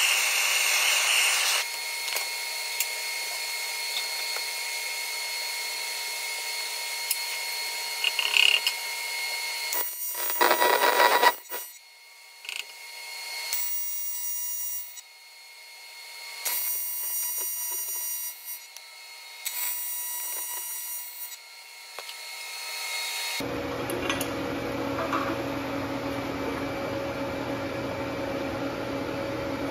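A propane torch hisses briefly at the start. Then an AC TIG arc on aluminium, run at 150 Hz, buzzes in three or four short stitch welds of about two seconds each. After a sudden change, a steady electrical hum follows.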